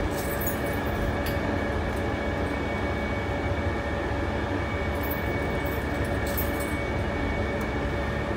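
New Taipei Metro Circular Line train running along elevated track, heard from inside: a steady rumble of wheels on rail with a constant whine. Brief high-pitched clicks come near the start and again about five to six seconds in.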